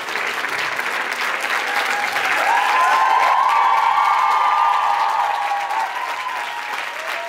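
Large audience clapping steadily. About two and a half seconds in, a few high voices rise over the clapping and hold for about three seconds, then fade.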